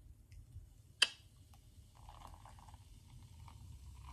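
Beer pouring from a can into a cup and fizzing, faint and steady from about two seconds in. A single sharp click about a second in.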